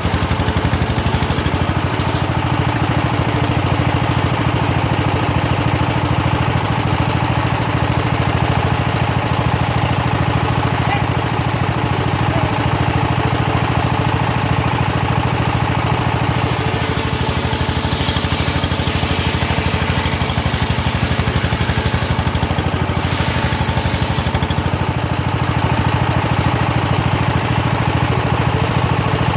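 The engine driving a homemade circular saw rig runs steadily with a fast, even pulse. A harsher hiss joins it for a few seconds past the middle, and again briefly a little later, as the blade cuts through hard teak.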